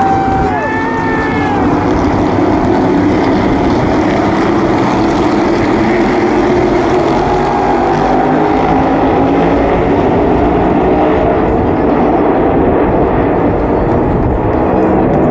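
The field of NASCAR Cup stock cars' V8 engines running together as the pack circulates the track: a loud, steady drone.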